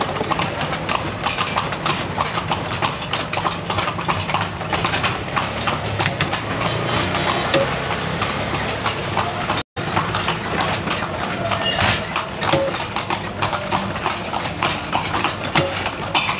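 Hooves of two carriage horses clip-clopping in a quick, continuous patter on a paved street as they pull a moving carriage. The sound cuts out completely for an instant a little past halfway.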